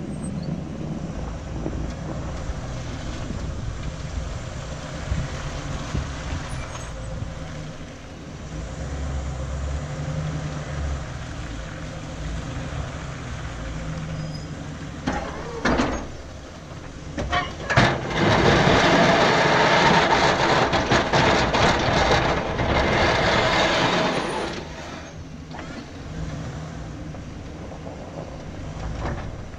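Pickup truck driving with a Fisher V-plow mounted on its front, heard from a camera on its front fender: steady engine and road noise. A few sharp knocks come a little past the middle, followed by a louder rushing stretch of about six seconds.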